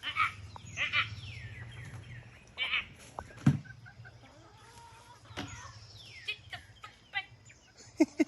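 Backyard chickens clucking and squawking in a string of short calls as they crowd around for feed, with one loud brief call or bump about three and a half seconds in.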